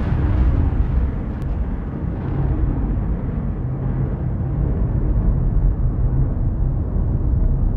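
Background soundtrack music: a deep, steady low rumble with little treble.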